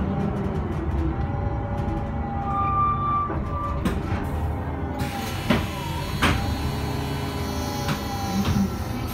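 Iveco Urbanway 12 city bus heard from inside while under way: a steady engine and road rumble, a brief whine about three seconds in, and a few sharp knocks or rattles in the middle.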